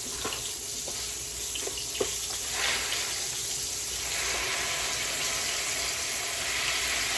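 Chicken legs frying in hot oil: a steady sizzle with a few sharp pops in the first two seconds. From about two and a half seconds in, a rushing sound of water joins it.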